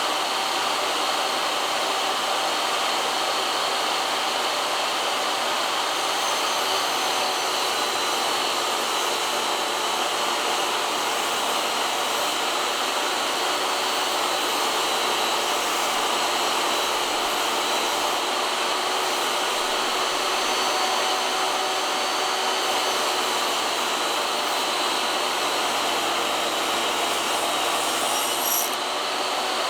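Steady rushing noise of an air-moving motor, unchanged throughout, with a brief sharp click near the end.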